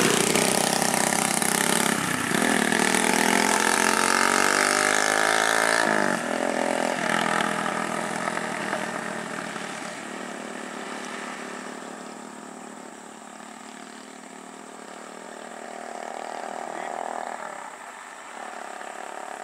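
Motorcycle engines running and revving as they ride past, the engine note rising and falling before it drops away about six seconds in and fades.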